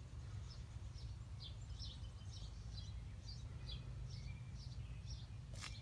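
A small bird chirping repeatedly, short high chirps about twice a second, over a steady low hum; a single sharp click near the end.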